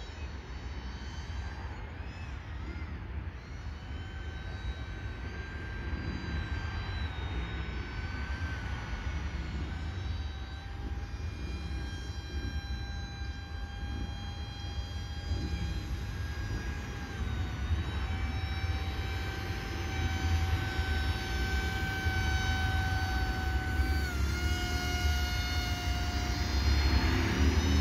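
RC paramotor model's propeller motor whining in flight: a steady high tone that shifts up and down in small steps, grows louder toward the end and bends in pitch as the model flies past. Under it is a low rumble of wind on the microphone.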